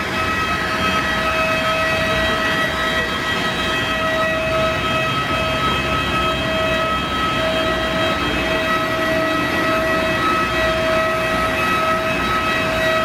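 Steady high-pitched whine of a parked Airbus A330-200's auxiliary power unit, over a low rumble of apron noise.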